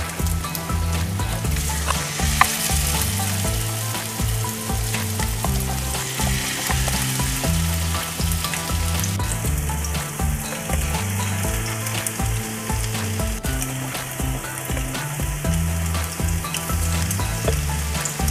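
Coated pork strips deep-frying in hot coconut oil, a steady sizzle as more pieces are dropped into the pan, with a single sharp click a couple of seconds in.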